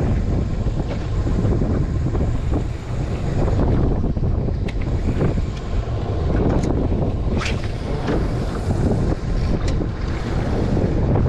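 Wind buffeting the microphone, with sea water lapping and slapping against the side of a small open boat. A few short, sharp sounds come in the second half.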